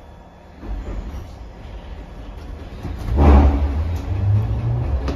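Glasgow Subway second-generation train pulling away from the platform. A low rumble from the motors and wheels builds about a second in, then surges loudly about three seconds in as the train gathers speed, with a low hum rising slightly in pitch.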